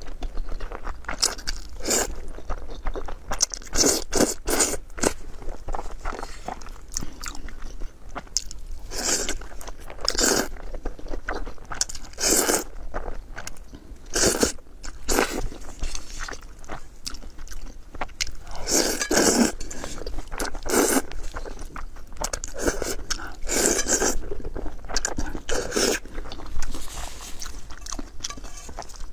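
Close-miked eating: a person biting and chewing food, with crunchy bites coming irregularly, a few each second.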